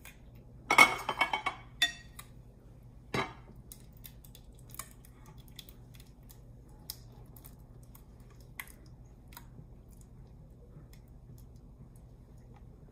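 Dishes clattering about a second in and a single knock near three seconds, as a glass mixing bowl is handled over a glass loaf pan. Then faint scattered taps and scrapes of a silicone spatula against the glass as a thick, creamy mixture is scraped out into the pan.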